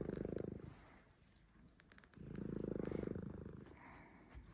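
A domestic cat's rattling purr-like snore in its sleep, one swell per breath: one fades about a second in and the next swells from about two seconds in.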